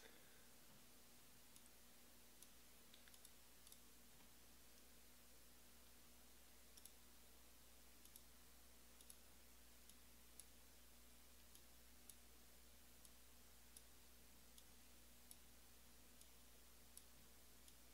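Near silence: faint room hum with small, sharp clicks about once a second.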